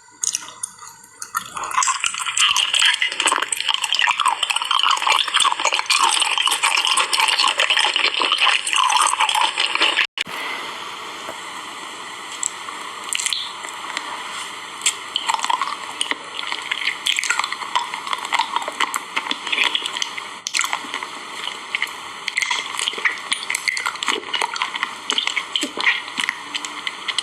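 Close-miked eating of jelly: wet, squishy chewing and mouth sounds with many small clicks. It breaks off abruptly about ten seconds in and carries on more softly.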